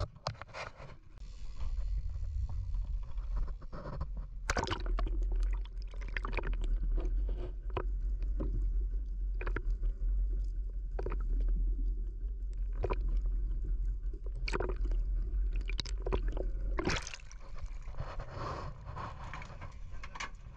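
Water heard through an underwater camera: a deep, muffled rumble with scattered sharp clicks and knocks. Near the end the rumble drops away to lighter open-air water and boat noise.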